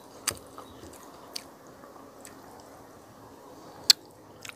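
Close-up eating sounds: a person chewing wet, squishy mouthfuls of pork nilaga soup with chayote. A few sharp clicks break in, the sharpest about four seconds in.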